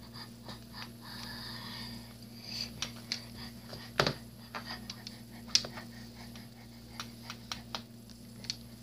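Soft handling noises of plush toys being shifted on a wooden floor: scattered small clicks and rustles, with one sharper knock about four seconds in, over a steady low hum.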